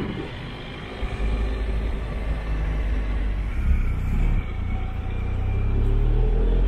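Motorcycle engine running during a ride, under a strong low rumble, its pitch and loudness rising near the end as it speeds up.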